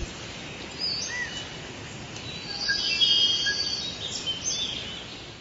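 Birds chirping and calling over a steady background hiss, with a cluster of high whistled notes about three seconds in.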